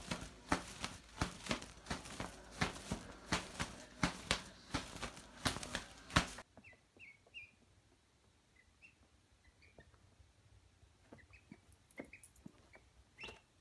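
A quick run of sharp clicks or taps, several a second, for about six seconds; then, after a sudden drop, a duckling peeping faintly in short, high, scattered chirps.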